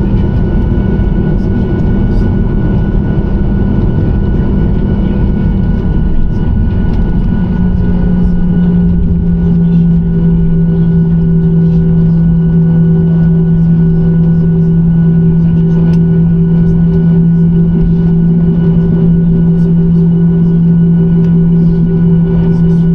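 Boeing 737-900ER's CFM56-7B jet engines running at high power, a loud rumbling noise with steady hums in it. About seven seconds in, the rumble smooths into a steadier drone with one strong, constant hum.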